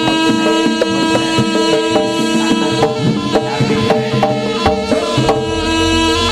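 Javanese jaranan gamelan music playing live: quick hand-drum strokes over held pitched tones, with a deeper low tone joining about five seconds in.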